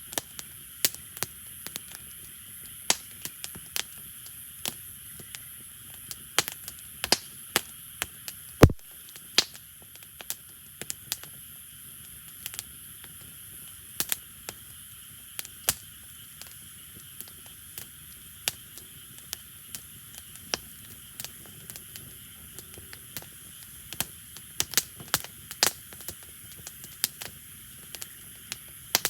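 Wood fire crackling: irregular sharp pops and snaps over a steady faint hiss, with one louder pop about nine seconds in.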